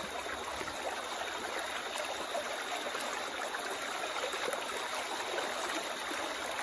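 River water flowing in a steady rush.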